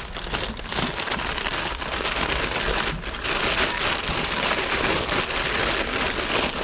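Close, dense crackling and rustling of paper wrapping being handled and pulled off small items, coming in uneven swells.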